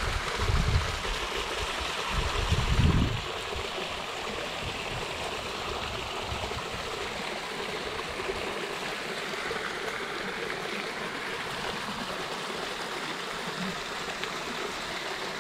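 Small stream running over rocks, a steady rush of water, with a few low rumbles in the first three seconds.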